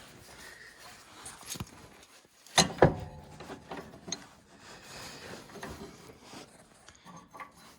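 Metal handling noise from a snowplow's mounting latch being worked by hand: two sharp clanks close together, followed by softer clicks and rubbing as the latch is fitted, which is not yet in the right spot or tight enough.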